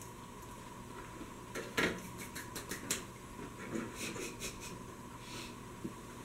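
Two people eating cookies: a scatter of small crunches and clicks from chewing, thickest about two seconds in and thinning out later, over a steady faint hum.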